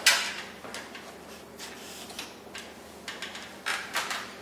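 Sharp click of a wall light switch being flipped off, cutting the power to the pendant light fixture, followed near the end by a few fainter clicks and knocks.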